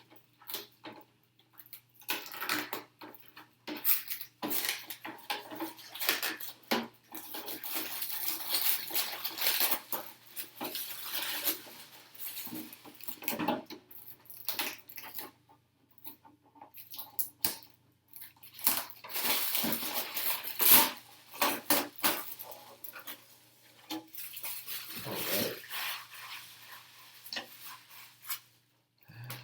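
Protective film being peeled off a painted polycarbonate RC truck body, crackling and crinkling in irregular stretches with sharp clicks as the flexible shell is handled.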